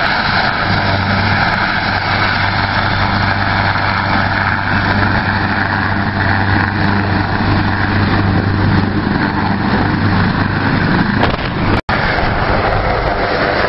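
Rescue helicopter running on the ground, a loud steady turbine whine over the rotor noise. There is a brief gap about twelve seconds in, and after it the helicopter is lifting off.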